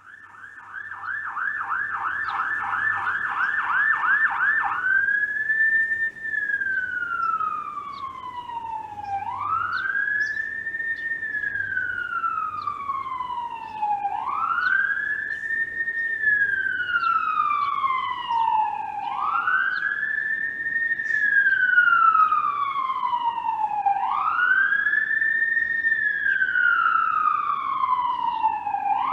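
Toronto ambulance siren in rapid yelp, switching to a slow wail about five seconds in. Each wail rises quickly and falls slowly, repeating about every five seconds. It grows louder over the first few seconds.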